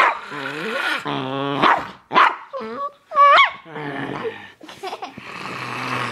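A dachshund growling, with a low rumble broken by several sharp barks.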